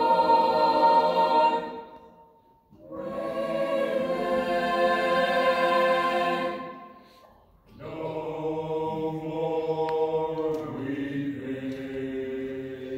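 Mixed youth choir singing a cappella in long held chords, in three phrases broken by two short pauses for breath.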